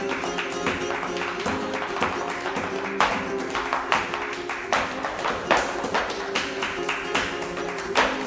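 Live flamenco: a guitar playing a strummed and plucked pattern with hand-clapping (palmas) keeping the rhythm, the claps coming as sharp strikes, a few much louder than the rest.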